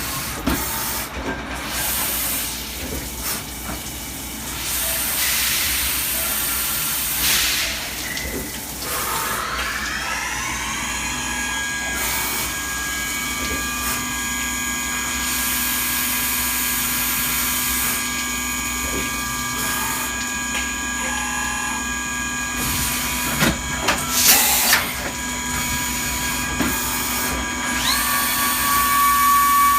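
CNC milling machine working a small metal part: bursts of hissing for the first several seconds, then about nine seconds in the spindle spins up with a rising whine that levels off into a steady whine of several tones, broken by short hissing bursts. Near the end another whine rises and holds.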